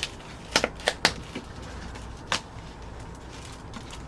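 Chocolate bar wrapper being opened, giving a few sharp crackles in the first second and a half and one more just past two seconds.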